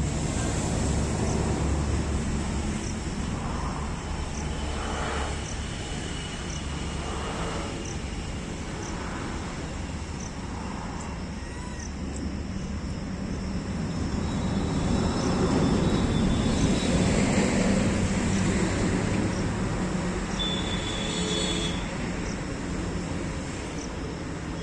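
Outdoor traffic noise: a steady rumble that swells as a vehicle passes, loudest about 15 to 19 seconds in, with faint regular high ticks about once a second.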